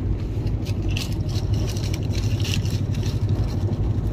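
Moving train's steady low running rumble, heard from inside a closed first-class AC coupe compartment, with scattered light clicks and rattles that are busiest about a second to two and a half seconds in.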